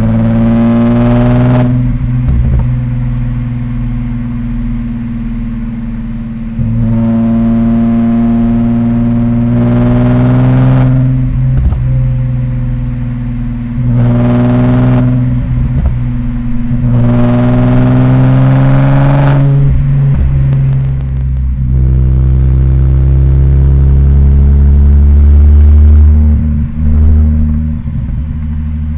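Audi S4 B5's twin-turbo V6 accelerating gently through the gears about four times, its pitch climbing on each pull. Each ends with a rising then falling turbo whoosh and flutter as the throttle closes. After that it drones steadily at low revs, growing louder near the end.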